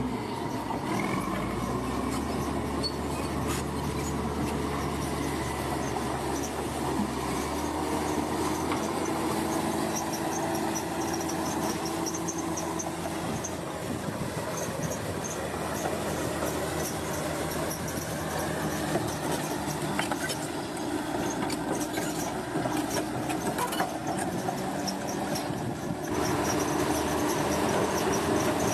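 Bulldozer working: a diesel engine running steadily under the metallic clanking and squealing of its steel tracks, a little louder near the end.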